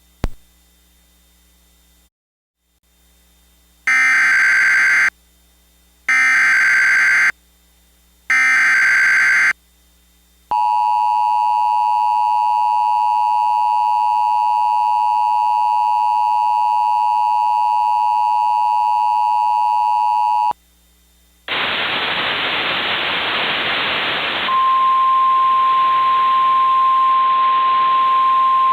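Emergency Alert System broadcast tones: three short SAME header data bursts, then the two-tone EAS attention signal held for about ten seconds. After a brief gap comes radio static, and about three seconds later a steady single tone joins the static.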